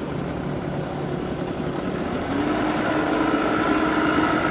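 Farm tractor engine running steadily under load while driving a rear-mounted rotary ditching head through the mud of a rice field. About two seconds in, a steady higher tone joins and the sound grows slightly louder.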